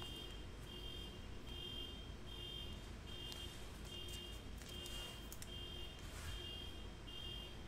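A car alarm beeping in a steady repeating pattern, roughly one beep every three-quarters of a second, faint in the room.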